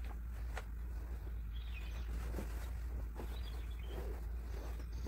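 Quiet room ambience: a steady low hum with a few faint, short bird-like chirps and soft rustles of a towel being moved.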